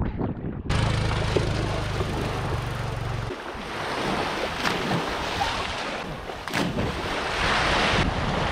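Small waves washing onto a sandy shore, with a low wind rumble on the microphone for the first few seconds and a couple of brief splashes.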